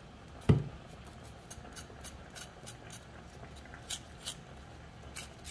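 Kitchen knife paring the skin off a ginger root held in the hand, making a scattered run of small crisp cutting clicks, with one sharp knock about half a second in.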